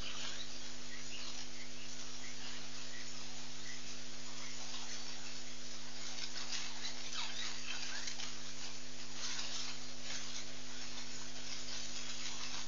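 Steady electrical hum from a live webcam's audio feed, under a high hiss dotted with faint scratchy ticks.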